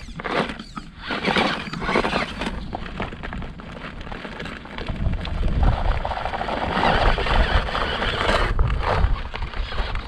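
Electric RC rock crawler (FTX Ravine) driving over rocks: its motor and drivetrain whirring while the tyres scrabble and the chassis knocks and clatters against the stone. The stock tyres are struggling for grip. The noise gets denser and louder from about halfway through to near the end as it works up the rock.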